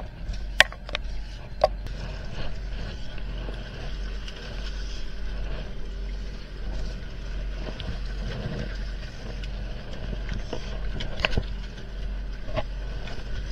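A fishing boat's engine running steadily with a low drone, while the set net is hauled in over the metal rail. Sharp knocks and clatter come twice in the first couple of seconds and again near the end.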